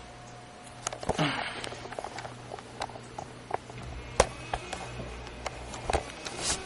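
Handling noise: scattered light clicks and knocks, one sharper about four seconds in, over a steady low hum.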